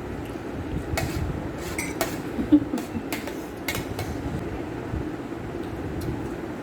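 Eating at a meal: a few short clicks and clinks against dishes, scattered about a second to four seconds in, over a steady low hum.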